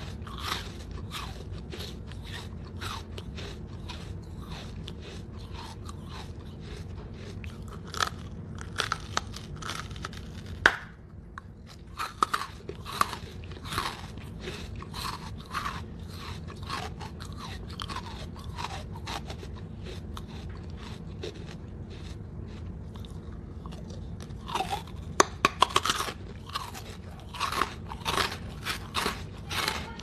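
Chewing pieces of red brick close to the microphone: a steady run of gritty crunches, with a few sharper, louder cracks about eight to ten seconds in and again in the last few seconds, and a short pause a little after ten seconds.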